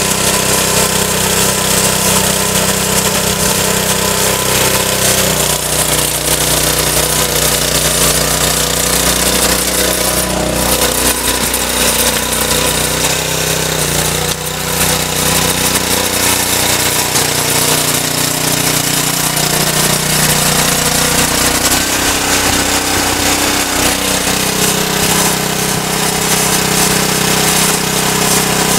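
Cub Cadet RT 65 rear-tine tiller's Honda 6.5 hp engine running under load as its reverse-turning tines churn soil. The engine note drops a few seconds in and climbs back near the end as the load changes, with a brief dip in loudness about halfway.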